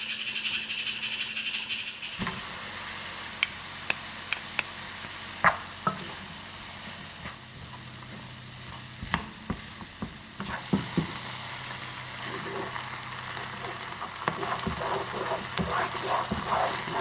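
Fried rice sizzling in a pan while it is stirred, the spatula clicking and knocking against the pan at irregular moments.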